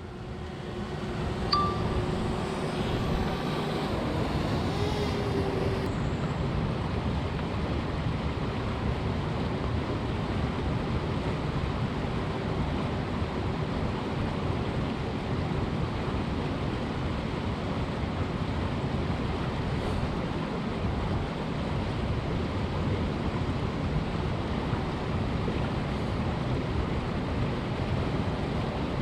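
Steady rushing noise of fast-flowing river water. A faint hum fades out within the first few seconds.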